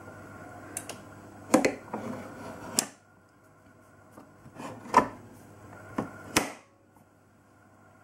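Plastic clicks and clunks from a Bosch Tassimo pod coffee machine as its top lid is lifted and pushed shut by hand: several sharp knocks in two clusters. A steady hum under them drops away about three seconds in.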